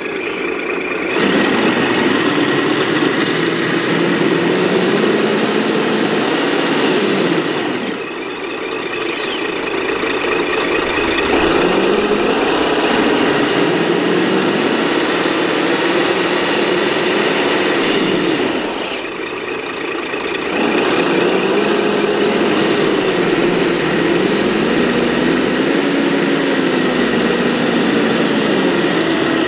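Radio-controlled scale 8x8 military trucks crawling through sand, their drive sound rising and falling in pitch with the throttle and easing off briefly twice.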